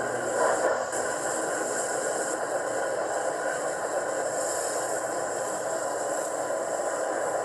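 Hornby Black 5 model steam locomotive running on the track with its sound and steam effects on: a steady running noise from its onboard speaker and wheels, with some rattle.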